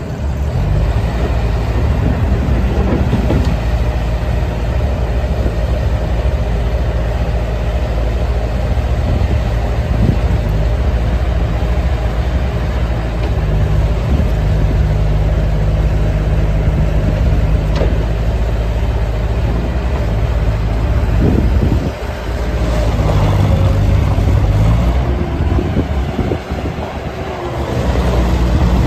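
Bobcat 863 skid steer loader's diesel engine running, its engine speed and load rising and falling several times as the machine is worked.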